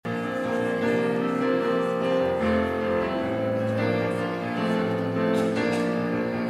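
Instrumental keyboard music, slow and held chords changing every second or so.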